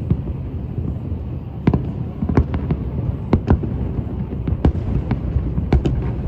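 Fireworks going off: a string of irregularly spaced sharp bangs, several a second at times, over a steady low rumble.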